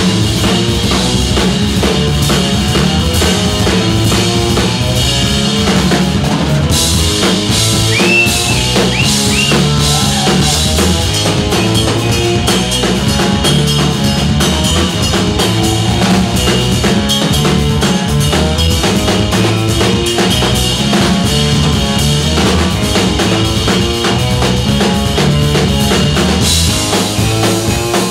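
Live rock band playing an instrumental passage: drum kit with a steady beat and electric guitar. Cymbals come in louder about seven seconds in and drop back near the end, with a few high sliding notes around eight seconds in.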